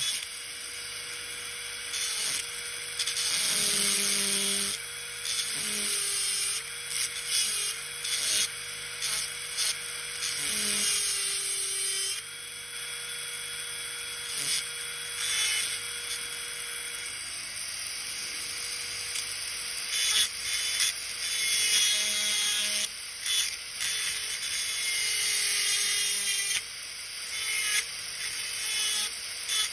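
Dental handpiece with a long thin fissure bur cutting dry into a model incisor: a hissing high whine that grows louder and grinds in short stretches each time the bur bites, its pitch sagging under the load, between lighter spinning.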